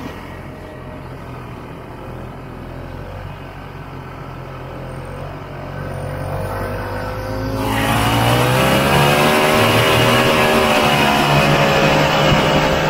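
Two-stroke engine of a 1967 Ski-Doo Olympic snowmobile running at low throttle under way, then speeding up a little past halfway with a rising pitch and holding at a higher, louder pitch.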